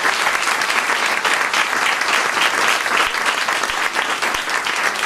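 A roomful of people applauding, many hands clapping steadily at once.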